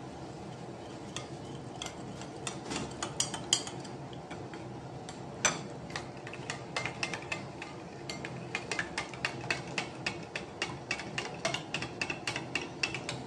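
Metal spoon stirring jelly powder into hot water in a white bowl, clinking against the bowl's sides in short irregular taps, sparse at first and quicker, about three or four a second, from about halfway in.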